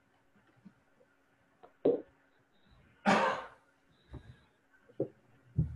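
Quiet open conference-call line: a faint steady hum, with a few short scattered noises and a brief rush of breathy noise about three seconds in.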